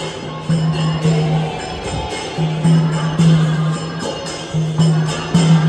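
Music: a steady low drone under regular jingling percussion strokes.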